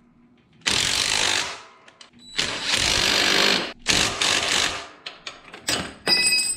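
Cordless impact driver hammering in three bursts as it runs a 1/4-inch Allen bit to tighten the brake caliper bolts against a wrench held on the back nut. Near the end, light clicks and a short ringing metallic clink as the tools are put down.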